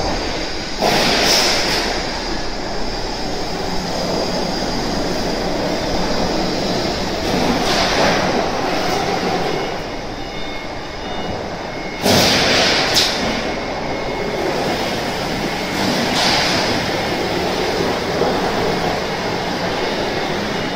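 Corrugated-sheet roll forming machine running, its rows of forming rollers pressing a metal sheet into waves: a steady mechanical rumble with brief louder metallic scraping swells every few seconds.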